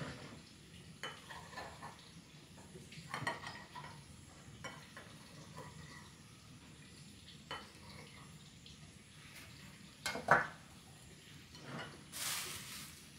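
Pots and utensils being handled: scattered clinks and knocks, the loudest about ten seconds in, then a short hiss near the end.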